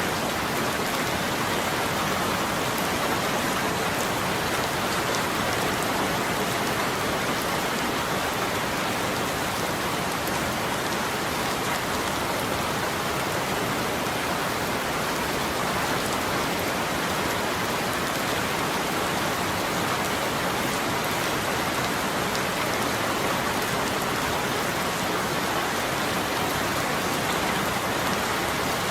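Steady, even rainfall with individual drops pattering on a surface.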